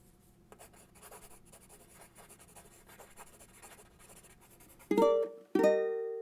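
Faint scratching, like a pen on paper, then two loud plucked chords on a string instrument, the second ringing out and slowly fading.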